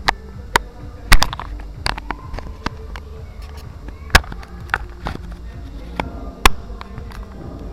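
Sharp knocks and clicks at uneven intervals, about nine in all, the loudest a little over a second in, over a low steady background hum.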